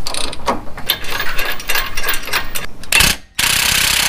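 Hand socket ratchet clicking in quick runs as the nut on the sway bar link's upper mount is tightened. Near the end an abrupt, steady, loud rushing noise takes over.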